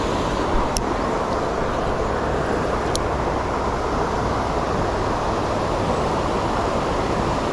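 Steady rushing of creek rapids (white water), with two brief sharp clicks, one under a second in and another about two seconds later.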